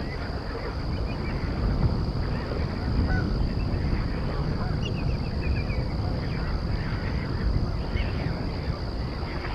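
A mixed flock of waterbirds calling: many overlapping honks, rattling calls and chatter from sandhill cranes and geese. Underneath runs a constant low rumble and a steady high-pitched hum.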